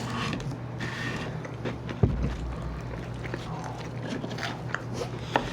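Close-miked eating sounds: chewing and small mouth and food-handling clicks, with a sharp knock and low thud about two seconds in, over a steady low hum.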